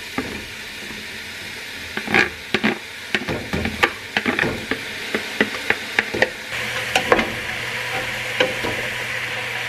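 Chopped onions, carrots and celery sizzling in a stainless steel stockpot as the vegetables are tipped in and stirred with wooden utensils. From about two seconds in, the wood knocks and scrapes against the pot many times.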